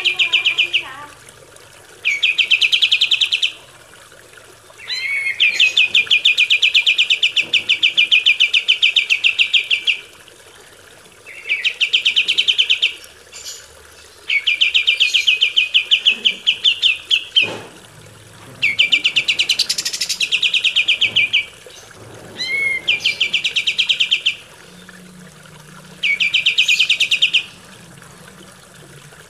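Kapas tembak bird singing: bursts of fast, rattling trilled notes, most one to three seconds long and one about five seconds, repeated about nine times with short pauses between them.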